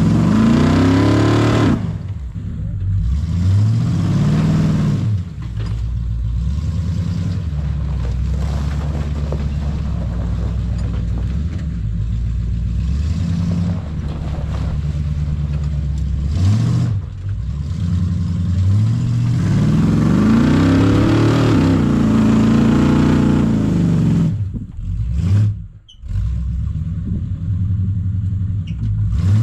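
Off-road tow truck's engine revving up and down again and again as it is driven, each rev climbing in pitch and falling away, with one long rev in the second half. The sound drops out briefly near the end.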